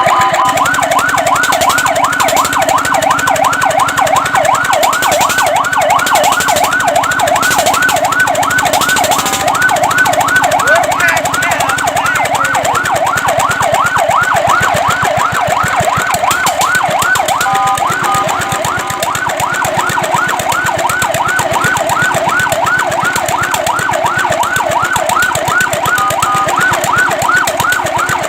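Fire truck siren in a fast yelp, its wail sweeping up and down about four times a second. Twice it briefly holds steady tones before the yelp resumes.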